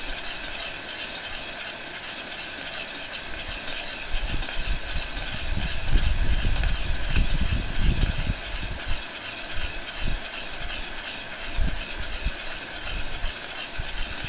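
Handheld electric heat gun blowing steadily into a metal bowl while a spoon stirs coffee beans mid-roast, still before first crack; the beans rattle and scrape against the bowl with many small sharp clicks. A louder low rumble comes about six to eight seconds in.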